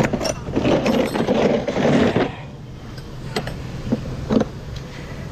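Metal sockets and ratchets clinking and rattling in a plastic socket-set case as it is opened and a gloved hand sorts through the tools. A dense clatter lasts about two seconds, then a few separate sharp clicks follow.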